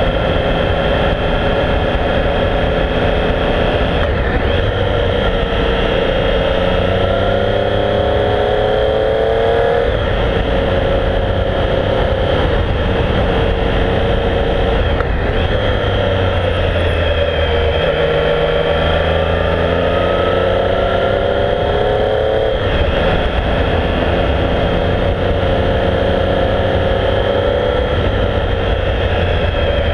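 Triumph Speed Triple's three-cylinder engine on the move, its note climbing under acceleration and dropping back sharply about four times.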